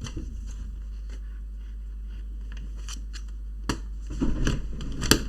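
Small clicks and scrapes of laptop plastic parts and cable being handled and pushed into place, with a sharp click about two thirds of the way in, then a busier run of clicks and scraping near the end, over a steady low hum.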